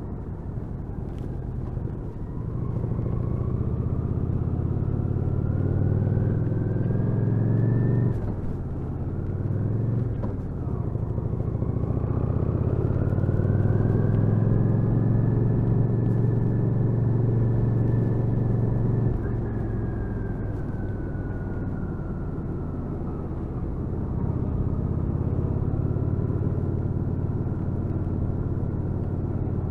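Kawasaki VN800 Drifter's V-twin engine running on the move. Its pitch climbs as it accelerates, drops abruptly at a gear change about eight seconds in, climbs again and holds steady, then falls back about two-thirds of the way through.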